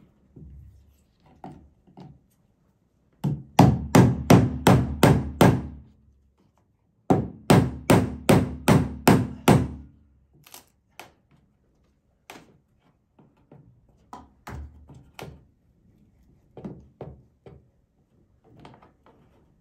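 Rubber mallet striking the handle of a screwdriver, driving its blade in behind a wood-grain trim panel to pry the panel loose. There are two quick runs of about seven blows each, then lighter, scattered knocks.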